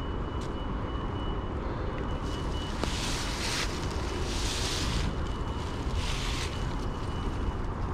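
Mountain bike rolling along a dirt trail, with steady wind rumble on the camera microphone and tyre noise. Three bursts of hissing come in the middle, and a faint thin high tone comes and goes.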